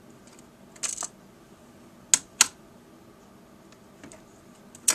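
Sharp plastic clicks and snaps: a pair about a second in, two loud snaps a quarter second apart about two seconds in, and another near the end. These are the retaining clips of a laptop's plastic screen bezel releasing as the frame is pried off.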